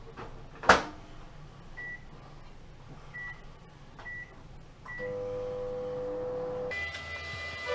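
Microwave oven door shut with a sharp clack, four short keypad beeps as the buttons are pressed, then the microwave starts running with a steady hum.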